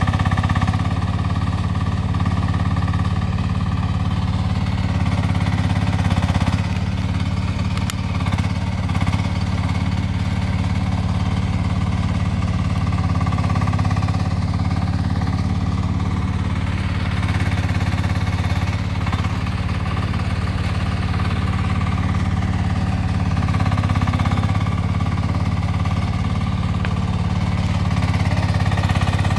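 Diesel engine of a MACAO CT1 mini excavator running steadily while the machine digs a trench. A fainter higher tone bends up and down a few times over it.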